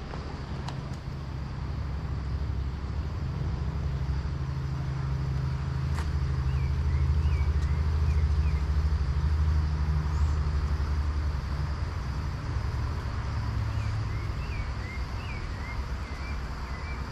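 Low drone of a motor vehicle's engine, building slowly to its loudest about halfway through and then fading. Faint bird chirps come in two short runs, in the middle and near the end.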